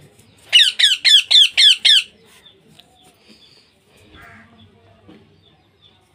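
Baby parrot giving a quick run of about six harsh squawks, roughly four a second, then falling quiet. These are the chick's begging calls while it is being hand-fed.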